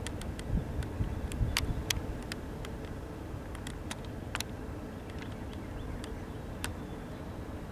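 Freight train rolling past: a steady low rumble with irregular sharp clicks scattered through it, more of them in the first few seconds.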